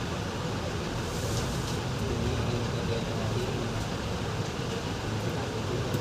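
Steady low background rumble, even throughout, with a few faint light scratchy sounds about a second in and near the end.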